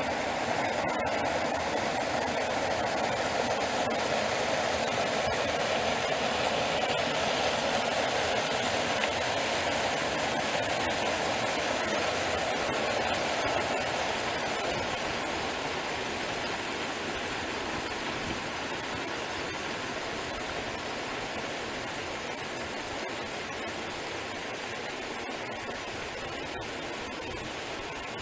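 Small spring-fed brook running fast over shallow riffles: a steady rushing and babbling of water, a little softer in the second half.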